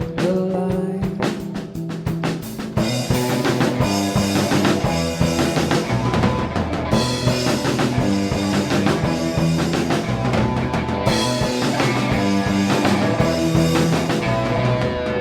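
Rock band playing with a drum kit, starting sparse and with the full band coming in about three seconds in.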